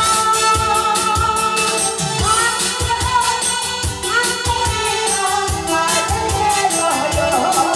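A woman singing into a microphone over amplified accompaniment with a steady beat, holding long notes with vibrato.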